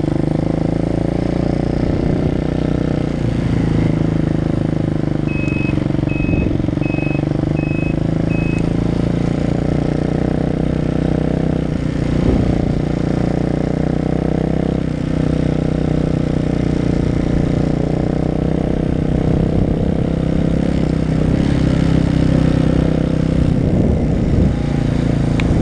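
Hawk 250 enduro's single-cylinder engine running steadily. About five seconds in, a run of five short high beeps sounds.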